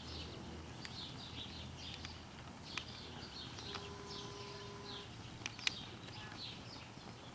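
Small birds chirping faintly and repeatedly, with a few sharp clicks and a brief steady tone partway through.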